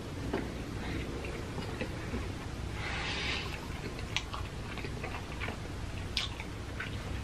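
A person chewing food close to the microphone, with wet, smacking mouth clicks and a short crunchy or slurping stretch about three seconds in.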